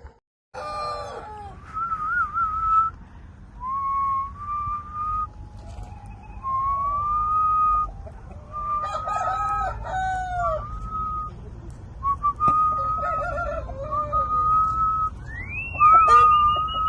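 Several Aseel roosters crowing, one crow after another, some overlapping, each a long held call. A steady low rumble runs underneath.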